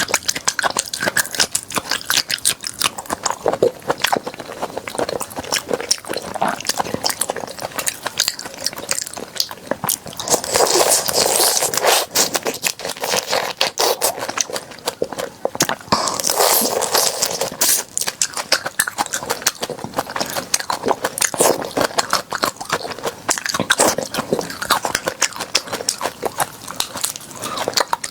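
Close-miked chewing of crunchy food: a dense, continuous run of crunches and crackles, louder in stretches about ten and sixteen seconds in.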